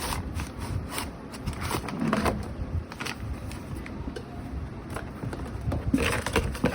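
Hands handling a lamp and its packaging: scattered clicks, taps and rustles, with a louder cluster about two seconds in and again near the end.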